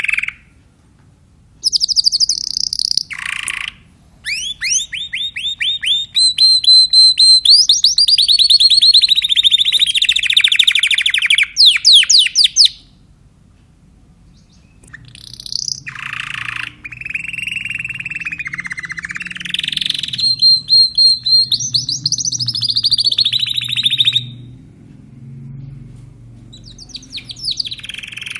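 Timbrado Spanish canary singing: phrases of fast repeated notes and trills, some gliding up and down in pitch, broken by pauses of a second or two.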